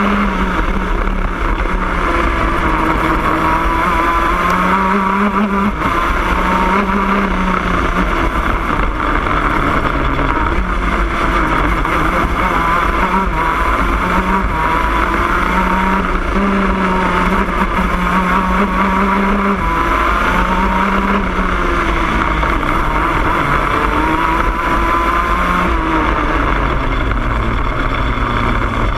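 Shifter kart's two-stroke engine heard from on board at racing speed, its revs climbing and dropping over and over as it is driven through the gears and corners.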